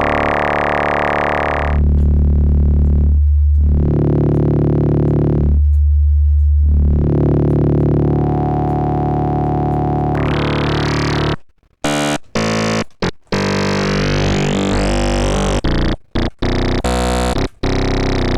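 Synthesizer built from phase-modulated formant oscillators, played as long held low notes dense with harmonics. About eleven seconds in, it switches to a run of short, choppy notes that cut off abruptly, with the tone sweeping up and down.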